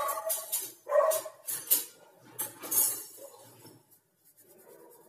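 A dog barking about three times in the first three seconds, over the hissing rustle of hands rubbing floured dough, then quieter.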